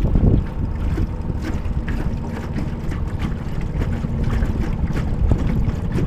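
Wind buffeting the microphone and choppy water slapping against the hull of a small flat-bottomed jon boat under way, with a faint steady hum underneath.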